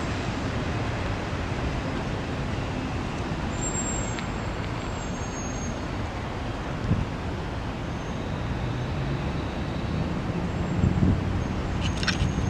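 Freight cars of a CSX manifest train rolling past on the rails, a steady rumbling noise.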